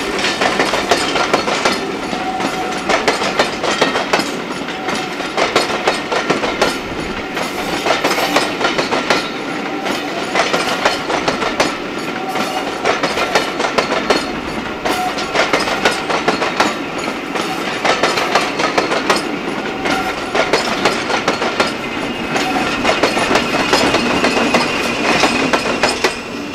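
Passenger coaches rolling past over the station pointwork, their wheels clicking rhythmically over rail joints and crossings, with short high tones coming and going. The sound fades near the end as the train draws away.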